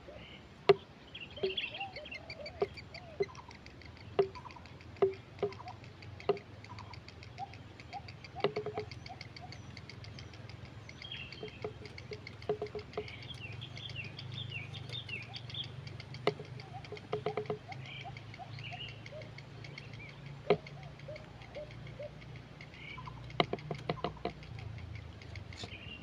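Irregular sharp clicks and short low notes at a striated heron nest, with fainter high chirping and a steady low hum underneath.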